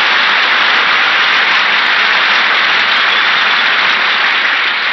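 Live studio audience applauding, a long steady ovation that eases off slightly in the last second.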